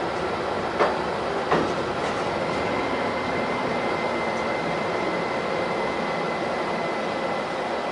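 Low-floor tram heard from inside the passenger cabin, running along the rails with a steady rumble. Two sharp knocks come in the first two seconds, and a thin, steady high-pitched whine of the traction equipment runs through the rest.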